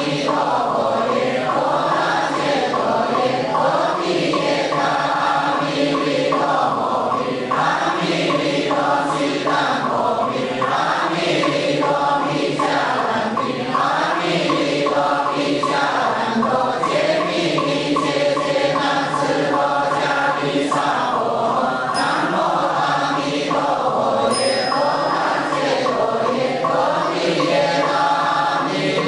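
Buddhist devotional chant sung by a group of voices in unison, a steady, unbroken melodic line.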